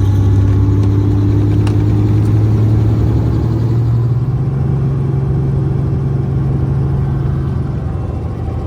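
An engine running steadily with a low hum, its pitch creeping slightly higher a few seconds in.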